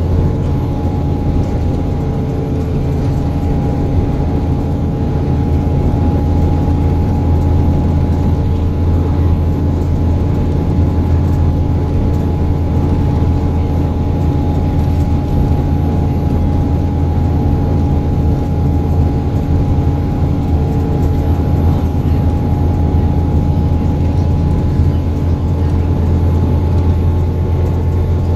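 Diesel engine of a double-decker bus running steadily at cruising speed, heard from inside the passenger saloon: a loud low drone with a thin steady whine above it.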